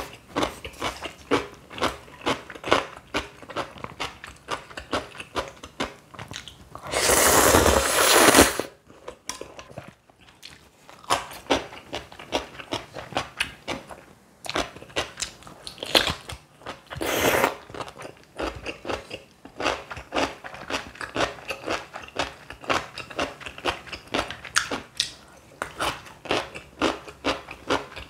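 Close-up eating sounds: steady crisp crunching and chewing, most likely of stuffed cucumber kimchi with ramyeon. About seven seconds in, a louder, noisier stretch lasts roughly a second and a half.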